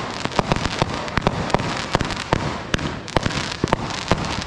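Aerial fireworks going off: a rapid, irregular string of sharp bangs and pops, several a second, over a steady rushing noise.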